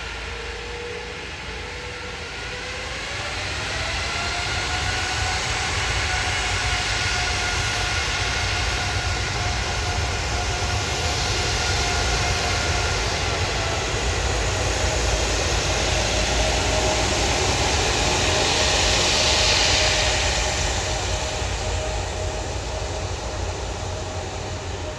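Boeing 777 jet engines at taxi power: a steady whine over a rushing noise. The whine rises in pitch about three seconds in and drops a little past the middle, and the sound is loudest about twenty seconds in before fading.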